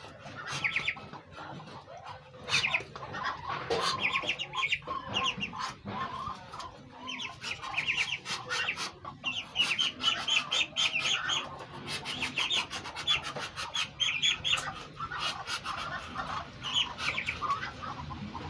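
Muscovy ducklings peeping: runs of short, high, rapid peeps, repeated again and again.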